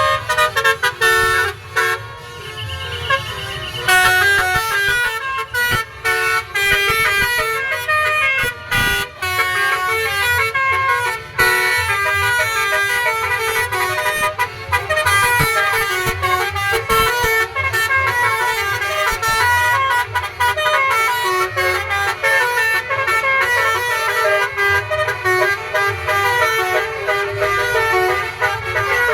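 Basuri (telolet) multi-tone car horns playing a tune: a loud, fast run of horn notes stepping up and down in pitch.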